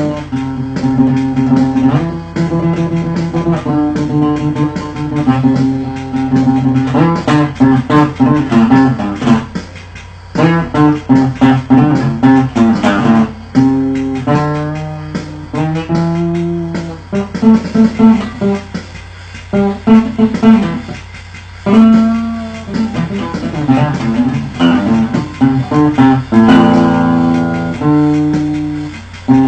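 Acoustic guitar played to imitate a bass guitar: a line of low plucked notes with a steady rhythm, and a stretch of quicker notes partway through.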